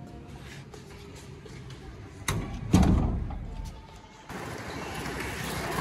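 Small metallic clicks and rattles of a padlock on a metal gate, then a loud clang and scrape about two seconds in as the gate is opened, fading over a second or so.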